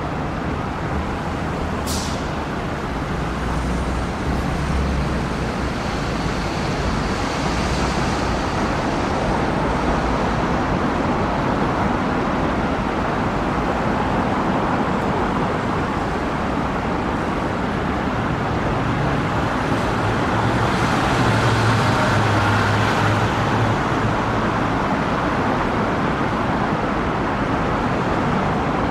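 Steady road traffic noise from cars on the road, with a vehicle's engine hum growing louder around two-thirds of the way through. A short sharp click sounds about two seconds in.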